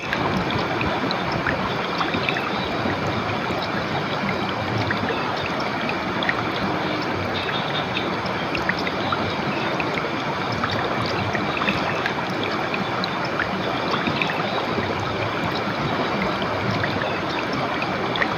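Clear river water flowing steadily, a continuous rush with small splashes scattered through it.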